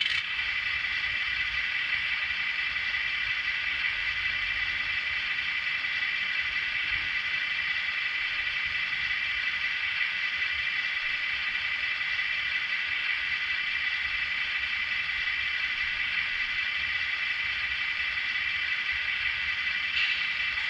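Onboard sound decoder of a Viessmann 2680 Unimog model playing a steady diesel engine idle through its small built-in speaker, thin with little bass.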